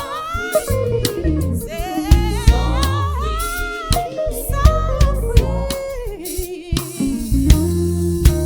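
Live band music with drums, bass and guitar, and a singer holding long wavering vocal runs without clear words; the vocal drops out near the end, leaving the band.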